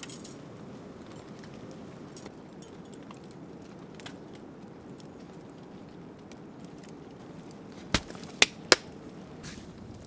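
Wood campfire crackling, then three sharp metal clinks in quick succession about eight seconds in as a wire spit basket and its chain are hung from a hook.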